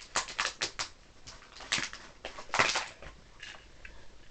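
Plastic packaging crinkling and clicking as a toy launcher is handled and pulled out of it: a quick run of small crackles, then two louder crinkles near the middle.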